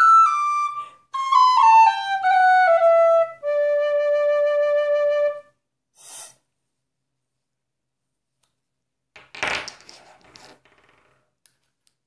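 High D tin whistle with a flat fipple and a guaiacwood block, playing a run of notes that steps downward and ends on its low bottom D, held for about two seconds. About nine and a half seconds in, a short rustle of handling noise.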